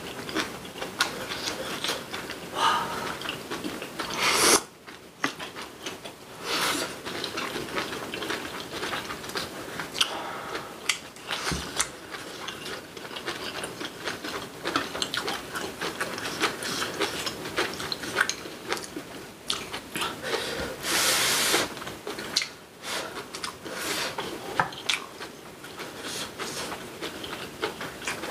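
Close-up eating sounds: wet chewing of braised kimchi and rice, with many small irregular clicks of chopsticks against ceramic bowls. A few short, louder noisy bursts stand out, about four seconds in and again near twenty-one seconds.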